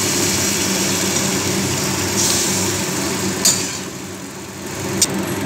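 Water sizzling in a hot metal pan of fried potato and pointed gourd strips as a metal spatula stirs it, with two sharp clinks of the spatula against the pan, one midway and one near the end; the sizzle eases for a moment around four seconds in. A steady low machine hum runs underneath.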